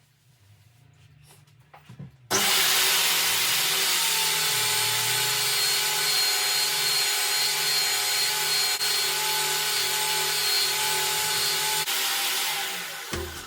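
Electric polisher running with its pad rubbing scratch remover into a wooden snare drum shell: a steady motor whir over rubbing noise. It starts suddenly a couple of seconds in after a few light knocks, and winds down near the end.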